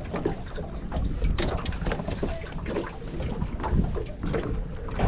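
Wind buffeting the microphone in a gusting low rumble, with scattered small clicks and knocks from handling fishing gear.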